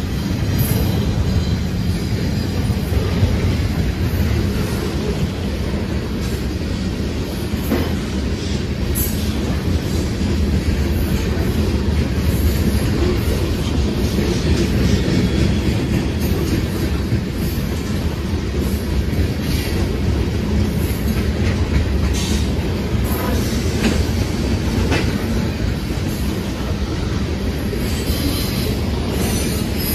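Two freight trains rolling past at once, a train of tank cars close by and a train of boxcars and hoppers beyond it: a steady rumble of steel wheels on rail, with wheels clicking over rail joints every so often.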